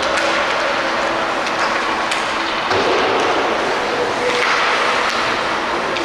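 Ice hockey play on the rink: skate blades scraping across the ice over a steady noisy rink background, with a few sharp clicks of stick or puck, one about two seconds in and one at the end.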